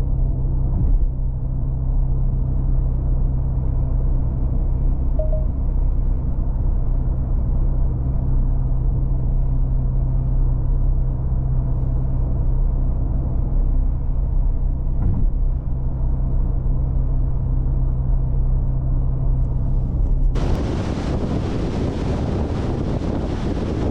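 2024 Porsche Cayenne Coupe's 3.0-litre turbocharged V6 running at a steady, even engine note while the car cruises. About twenty seconds in, it cuts abruptly to a loud rush of wind noise.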